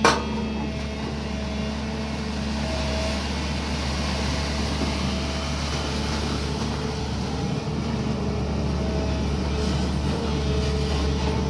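SANY excavator's diesel engine running steadily, with a single metallic clank right at the start.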